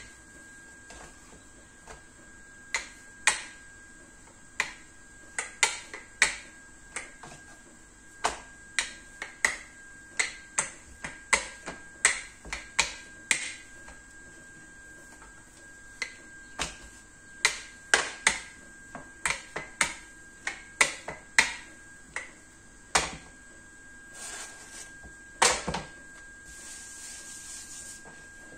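Irregular sharp clicks and knocks of a plastic rolling pin and dough sheet against a plastic cutting board as samosa pastry is rolled out and handled, with a short rubbing of hands on the dough near the end.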